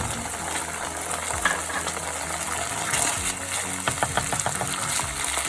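Chopped onions and carrots with oyster sauce sizzling in a hot pan, with scattered clicks of a utensil stirring them.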